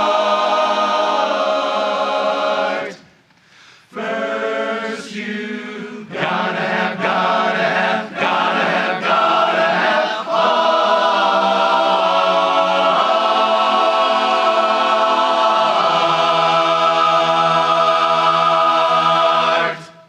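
Barbershop chorus singing a cappella in close harmony, closing the song. A held chord breaks off about three seconds in, a run of short notes follows, then a final chord is held for about ten seconds and cut off together.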